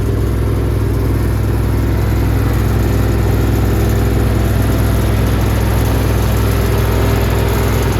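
A machine running steadily at constant speed: a loud low hum with a steady hiss over it.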